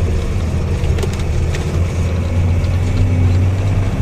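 Truck engine running steadily in a low drone while the truck crawls over a rough dirt road, heard from inside the cab, with a few faint clicks about a second in.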